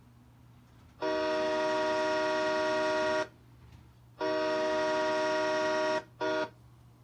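Train horn, worked by a pull cord, sounding a chord of several steady tones in three blasts: two long ones of about two seconds each, then a short one.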